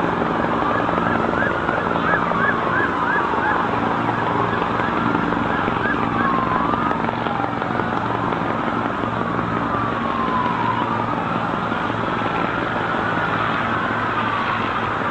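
Emergency vehicle sirens wailing, slowly rising and falling in pitch, with a short run of quick yelps about two seconds in, over a steady low drone of engines.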